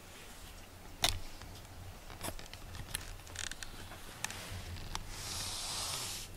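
A cat rubbing up against the camera: a few sharp clicks and knocks, the loudest about a second in, then a rustling hiss of fur brushing over the microphone for more than a second near the end.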